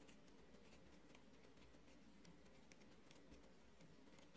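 Near silence, with faint scattered ticks and rustles of yarn and fingers on the pegs of a plastic circular knitting loom as yarn is wound around them.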